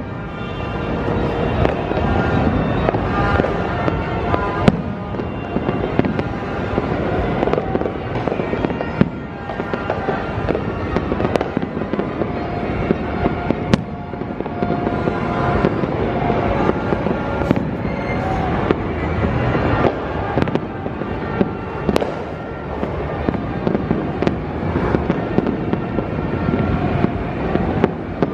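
A continuous barrage of New Year's Eve fireworks and firecrackers going off, a dense crackle with many sharp bangs throughout, and music playing underneath.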